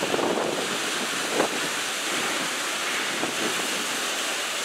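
Wind buffeting the microphone over choppy river water: a steady rushing hiss with a few short gusts, the strongest about one and a half seconds in.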